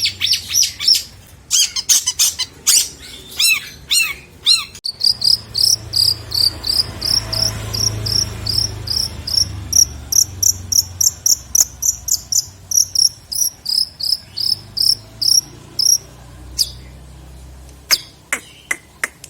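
Long-tailed shrike (cendet) singing a varied song with mimicked phrases. It opens with sharp chirps and downward-sweeping notes, then gives a long fast run of high, repeated notes about three a second, ending in a few sharp calls.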